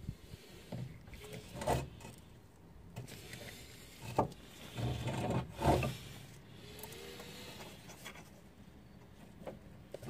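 Hands working a rubber CV joint boot and the new outer CV joint on a car driveshaft: rubbing of rubber and metal, with a few scattered knocks, about two seconds in, near four seconds, and around five to six seconds.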